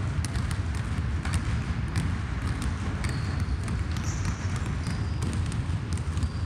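Several basketballs dribbled at once on a hardwood gym floor, a dense overlapping patter of bounces in a large gym, with a few short high squeaks midway.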